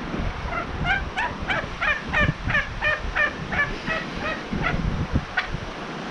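A domestic fowl calling in a quick run of about a dozen short calls, about three a second, each dropping slightly in pitch, with footsteps crunching through snow underneath.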